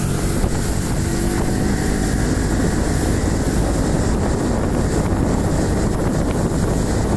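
1973 Chrysler motorboat's engine running steadily under way, with wind buffeting the microphone.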